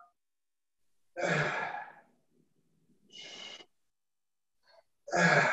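A man's heavy, sighing exhales of effort while pressing a kettlebell lying on his back: three breaths about two seconds apart, the middle one fainter.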